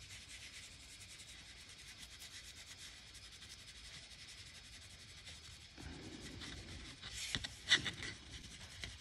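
Cotton swab scrubbing flux residue off a circuit board around a freshly soldered chip: a faint, steady, scratchy rubbing. About six seconds in it grows louder, with a few sharper scrapes and knocks near the end.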